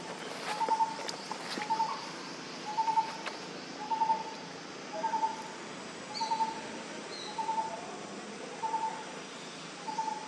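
A bird calling over and over: a short trilled note at one mid pitch, repeated about once a second.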